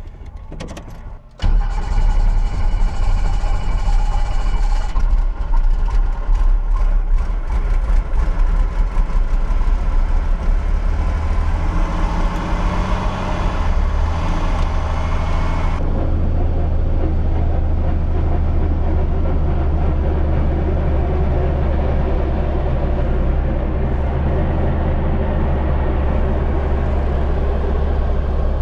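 Helicopter engine and rotor running, heard from inside the cabin as a loud, steady low rumble. It comes in suddenly about a second and a half in, and its higher hiss drops away about halfway through.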